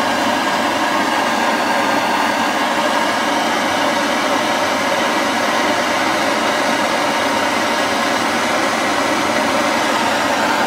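Handheld gas blow torch burning with a steady hiss, its flame playing on a lump of hardened PLA plastic to melt it off a 3D printer's hot end.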